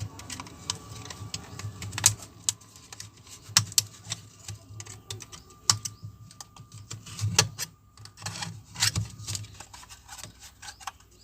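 Irregular clicks and taps of hands working at a Bluetooth speaker's plastic casing while opening it up, a few sharper knocks among them.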